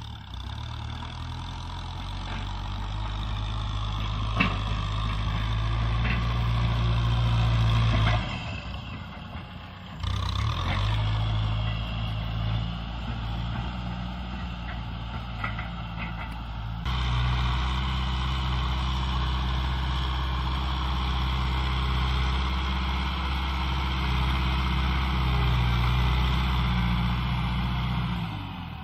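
Kubota M6040 SU tractor's diesel engine running steadily under load as its front blade pushes soil. Its level drops sharply about eight seconds in, returns about two seconds later and steps up again near seventeen seconds.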